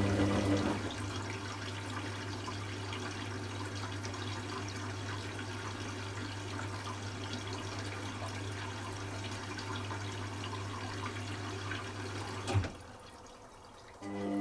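Hoover Classica 1100 washing machine taking in rinse water: water running in with a steady hum, cut off with a click about twelve seconds in. The drum motor stops about a second in and starts again near the end after a short pause.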